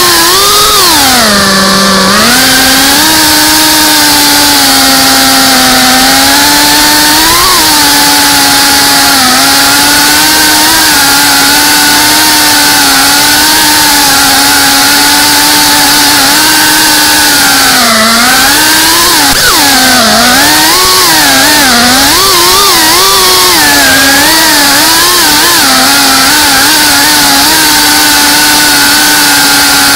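Loud whine of an FPV quadcopter's electric motors and propellers, recorded by its own onboard camera. The pitch mostly holds steady, with a dip about two seconds in and quick rises and falls in the second half as the throttle changes.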